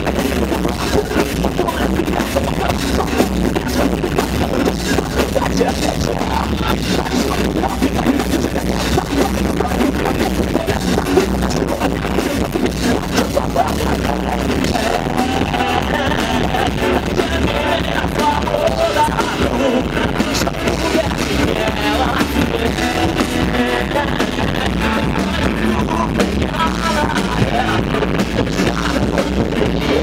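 Emocore/metalcore band playing live: electric guitars and drum kit under a singer's vocals, loud and dense with no break.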